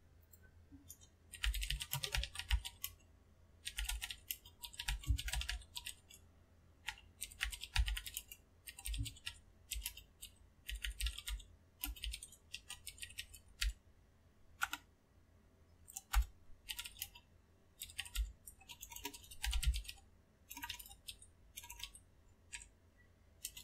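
Typing on a computer keyboard: quick runs of keystrokes in short bursts with brief pauses between them, beginning about a second and a half in.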